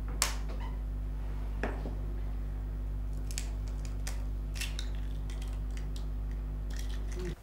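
Steady electrical hum, a low buzz with evenly spaced overtones that cuts off suddenly near the end. Over it, a sharp tap a moment in and a few soft clicks and cracks around three to four seconds in: an egg tapped on a glass bowl and its shell broken open.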